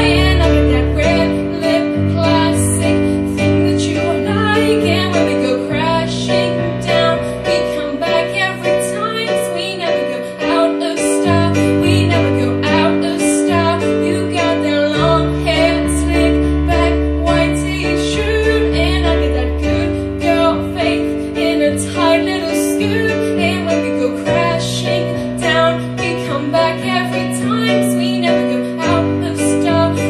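A young woman singing a song into a microphone over instrumental accompaniment, with held chords that change every few seconds.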